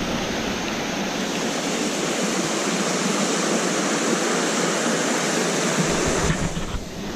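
Small mountain creek rushing over rocky cascades: a steady, even hiss of white water. A low rumble comes in near the end.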